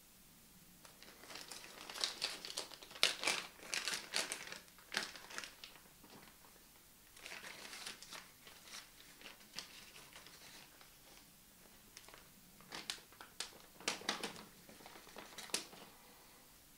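Thin plastic bags crinkling and rustling as they are handled, in three stretches with short pauses between them.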